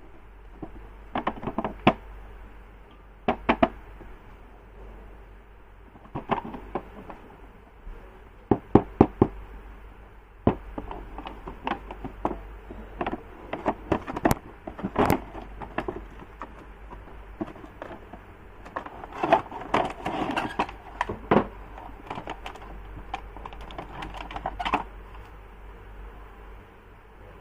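Irregular clicks, taps and knocks of objects being handled, some single and some in quick clusters, with a stretch of busier rustling and clattering about two-thirds of the way through.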